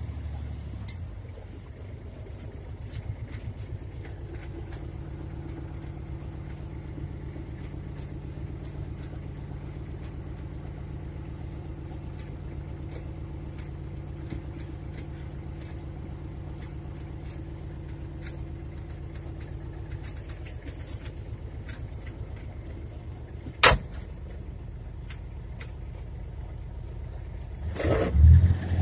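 Farm utility vehicle's engine running steadily, heard from inside its cab. There is one sharp knock a few seconds before the end and a louder low thump near the end.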